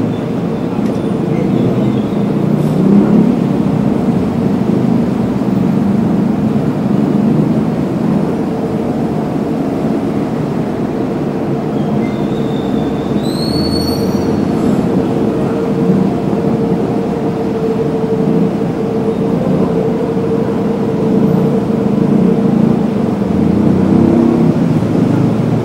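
Heavy city road traffic: vehicle engines running under a steady drone, with a brief high squeal that rises in pitch about halfway through.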